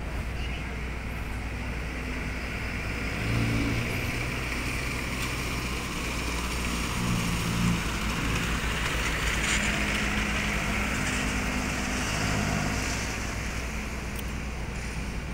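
A medium cargo truck driving slowly past, its engine running at low revs with the pitch stepping up and down, loudest in the middle as it goes by.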